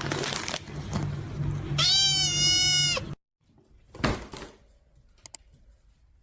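A cat gives one long, loud meow about two seconds in, over a noisy background, and the sound cuts off abruptly. A single thump follows about a second later.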